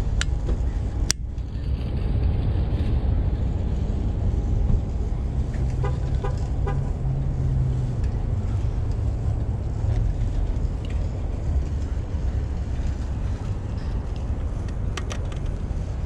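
Steady low rumble of parking-lot traffic, with a few sharp plastic clicks as a red turn-signal lens is handled and fitted, about a second in and again near the end.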